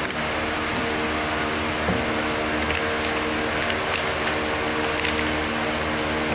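A steady droning hum over a hiss, with faint rustles and light taps of paper postcards and label sheets being handled on a wooden table.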